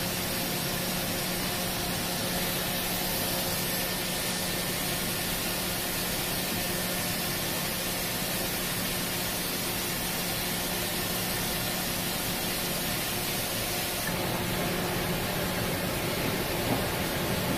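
Pietro Carnaghi ATF-14 TM CNC vertical turn-mill center running: a steady hiss with a steady machine hum under it. The hiss shifts slightly about fourteen seconds in, when coolant mist is thrown around the milling tool.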